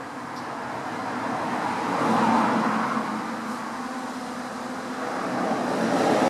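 Passing road traffic: a rushing noise that swells about two seconds in, eases, and swells again near the end.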